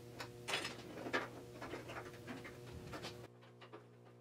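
Hand-tool work on the edge of a steel car fender: irregular scraping strokes and sharp metal clicks over a steady low hum. A little after three seconds the sound cuts to quieter room tone with a few light clicks.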